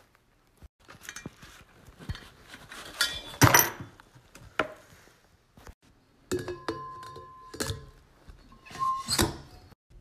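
Handling noises from unboxing and taking apart a stainless steel portable French press: scattered knocks and thunks of the cardboard box and the mug, and metallic clinks of the steel parts, one of them ringing briefly about seven seconds in.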